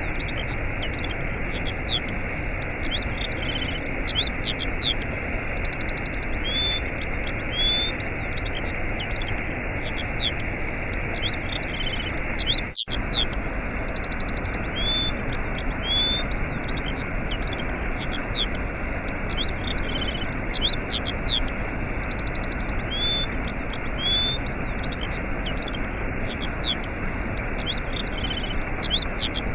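Waterfall rushing steadily, with small birds chirping and trilling over it in a repeating pattern. About halfway through, all the sound drops out for an instant.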